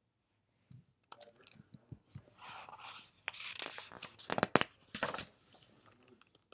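Pages of a large hardcover picture book being turned and the book handled: paper rustling and swishing with a few sharp taps, loudest about four and a half seconds in.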